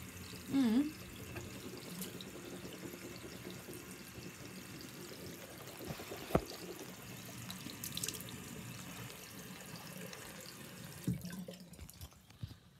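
Bathroom tap running into the sink, shut off about eleven seconds in. A short pitched sound that dips and rises comes under a second in, and a sharp knock about six seconds in.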